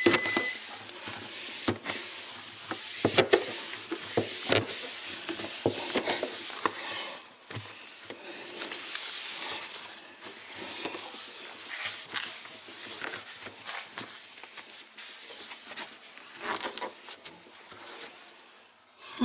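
Paper towel rubbing and wiping over refrigerator surfaces in a steady scrubbing hiss, with scattered light knocks and clicks.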